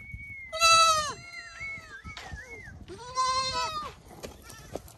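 Goats and sheep in a penned flock bleating: two loud bleats, one about half a second in and another about three seconds in, each under a second long. A thin, wavering higher-pitched call runs faintly through the first half.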